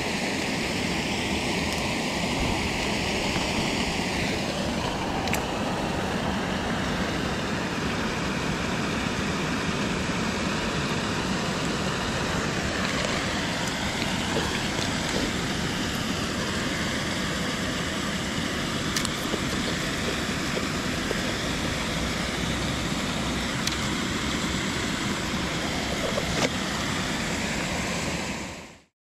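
Steady rush of flowing river water, with a few faint clicks scattered through it; it cuts off suddenly near the end.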